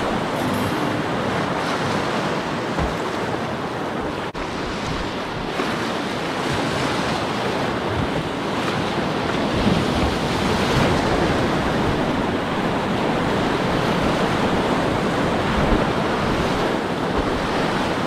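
Whitewater river rapids rushing steadily, close to the water, with one brief drop-out about four seconds in.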